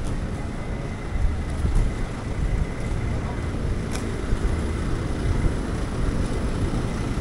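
Street noise: a steady low rumble of road traffic and wind on the microphone, with a single sharp click about four seconds in.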